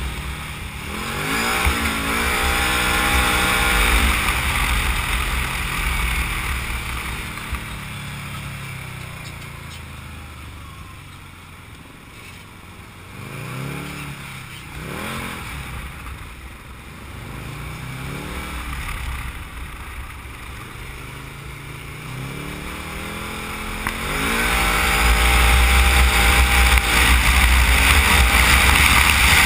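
Can-Am Maverick side-by-side's engine being driven hard, revving up and dropping back again and again through acceleration and lifts. It is quieter through a coasting stretch in the middle and then climbs into a long, loud acceleration near the end.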